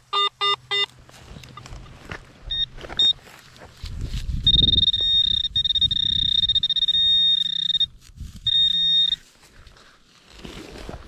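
Metal detector signalling metal: a quick run of low pulsed beeps at the start, two short high chirps, then a steady high-pitched tone held for about three seconds that breaks off and sounds again briefly. Scuffing handling noise comes just before the long tone.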